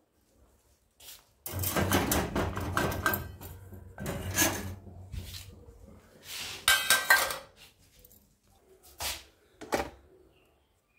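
Stainless steel and ceramic dishes clattering and clinking as they are handled on a metal wire dish rack, in several bursts with sharp clanks. A couple of short knocks come near the end.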